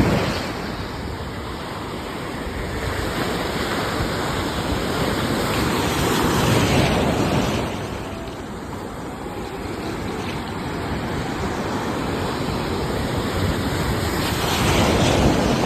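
Ocean surf: a continuous rushing wash of waves that swells into a louder surge about every seven or eight seconds, once midway and again near the end.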